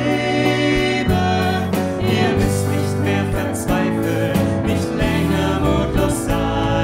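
Live worship band playing a German hymn: voices singing the refrain over guitar, keyboard and drums.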